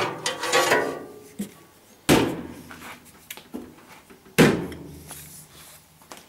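Hinged cabinet doors of an old 3D Systems V-Flash 3D printer being shut by hand: two knocks about two seconds apart, each with a short ring after it.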